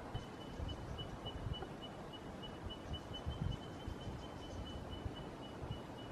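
Faint outdoor ambience: irregular low wind rumble on the microphone, and a thin, high, evenly pulsing trill that starts just after the opening and runs on steadily.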